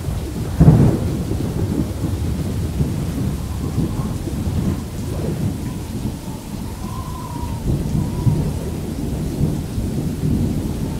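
Thunderstorm: a loud thunderclap just under a second in, then continuing low rumbling with rain.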